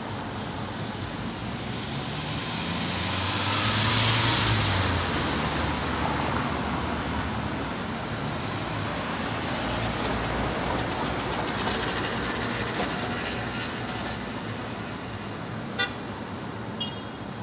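A car drives by, its noise swelling to a peak about four seconds in and then fading into a steady background hiss. A sharp click comes near the end.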